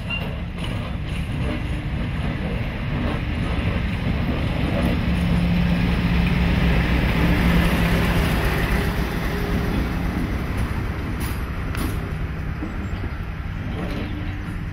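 Class 56 diesel-electric locomotive's Ruston-Paxman V16 engine running as it drives past close by, loudest about six to eight seconds in, then easing off as the hauled coach rolls past, with a couple of sharp clicks from the wheels near the end.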